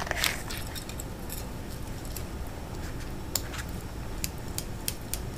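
Sporadic small clicks and light handling noises from a pair of needle-nose pliers and their packaging being handled, over a low steady background hum.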